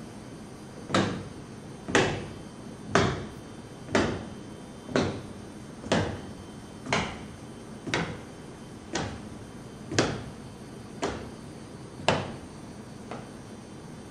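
A slow, even series of knocks or thuds, about one a second, thirteen in all, each dying away quickly, the last few weaker.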